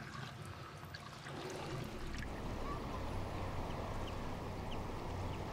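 Water running in a steady splashing flow, with a low hum joining about two seconds in.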